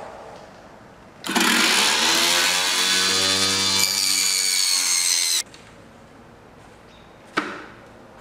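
Small table saw cutting a thin white panel fed along the fence: a loud blade whine whose pitch rises and then holds for about four seconds, then stops abruptly. It is a normal cut with no kickback. A single sharp knock follows near the end.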